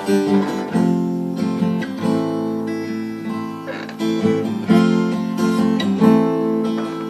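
Acoustic guitar strumming chords, a new chord struck about once a second and left to ring.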